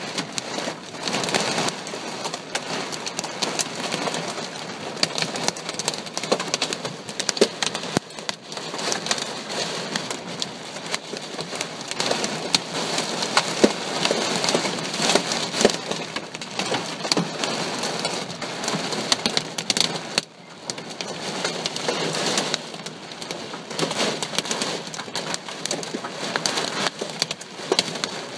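Heavy thunderstorm rain pouring down and striking hard surfaces in a dense patter of sharp ticks. It eases briefly about twenty seconds in.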